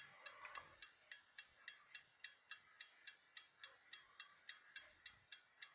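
Faint, steady ticking of a 1960 Neuchatel mantel clock's running movement, about four ticks a second.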